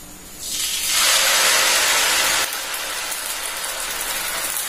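Dosa batter hitting a hot, oiled dosa griddle and sizzling: a loud hiss starts about half a second in, then drops to a steadier, quieter sizzle about two and a half seconds in as the batter is spread.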